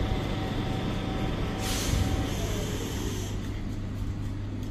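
Class 91 electric locomotive standing with a steady equipment hum. About one and a half seconds in, a sudden loud hiss of air being released, which eases off and stops a second or two later.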